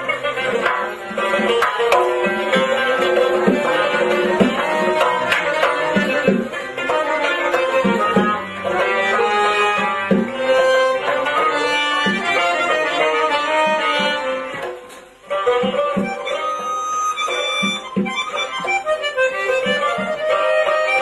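Instrumental passage of Uzbek folk music: a doira frame drum beats a steady rhythm under an accordion and a long-necked plucked lute playing the melody. The music drops away briefly about fifteen seconds in, then comes back.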